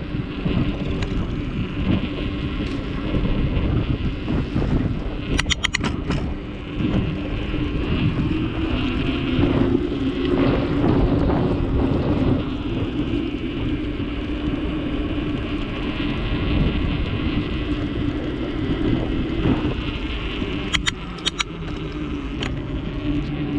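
Steady wind and rolling rumble from riding a bicycle, with a low hum running through it. A short rattle of clicks comes about five seconds in and again near the end.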